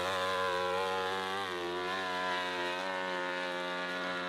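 Dirt bike engine running hard at high revs under load up a steep hill-climb slope, its pitch held fairly steady with small wavers.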